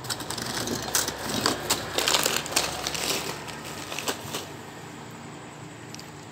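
Plastic bags crinkling and small loose parts clicking as a hand rummages through a plastic tub of bagged electronic components. The rustling stops about four seconds in, leaving a low steady background hum.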